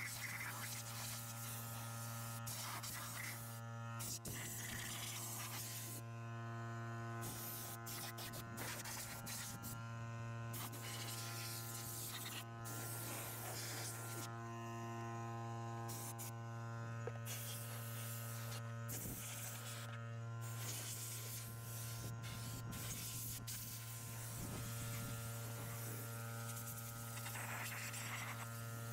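Steady electric motor buzz with a strong low hum from running detailing equipment. A high hiss comes and goes over it every second or two.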